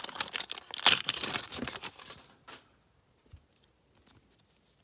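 A trading card pack's wrapper crinkling and tearing open in a quick run of rustles. It stops about two and a half seconds in, leaving only a few faint ticks.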